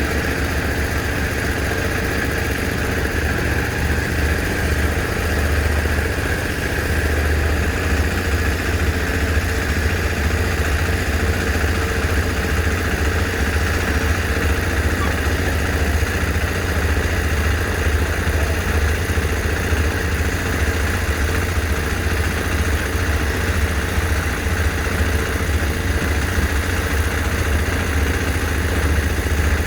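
Engine of heavy construction machinery running steadily: a deep, even low rumble with steady higher tones over it and no knocks or pauses.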